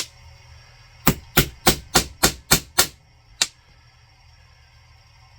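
A hammer striking in a quick run of about seven blows, roughly three a second, then one last blow after a short pause.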